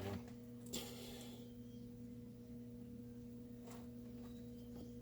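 Steady low hum in a quiet workshop, with a brief scrape of parts being handled about a second in and a faint click near the end.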